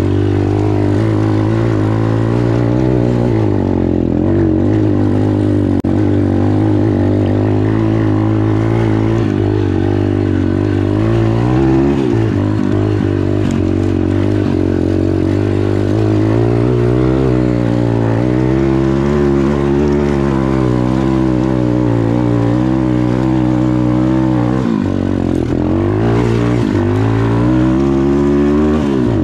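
Dirt bike engine running, its speed rising and falling again and again.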